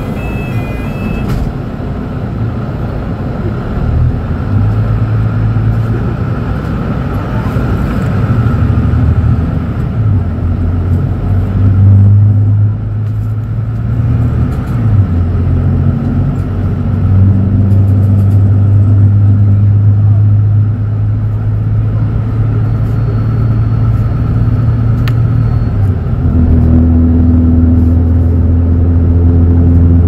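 Inside a Mercedes-Benz O500U city bus under way: the OM936LA six-cylinder Bluetec 6 diesel hums loudly. Its pitch shifts several times as the Voith DIWA.6 automatic works through its gears, and it steps up near the end. A few short electronic beeps sound right at the start.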